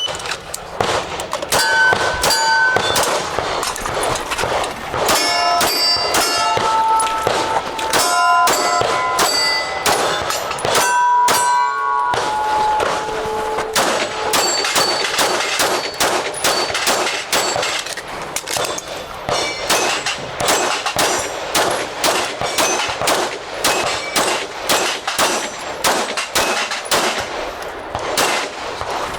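Rapid pistol fire in quick strings of shots, with steel targets ringing at several different pitches as they are hit, the ringing densest in the first half.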